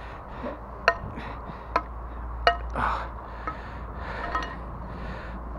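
A rusty iron rod held on a magnet knocking and scraping against a concrete quay edge as it is hauled out of the water: three sharp metallic clinks that ring briefly, with softer scrapes between them.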